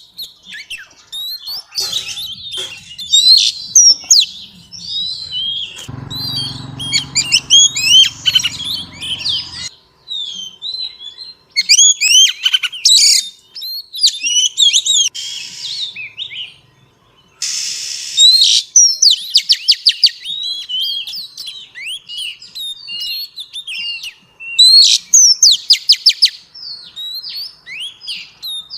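Female oriental magpie-robin singing varied whistled phrases of rising and falling notes and chirps in bursts with short pauses, including quick runs of repeated notes. A low rumble runs underneath for a few seconds in the first third.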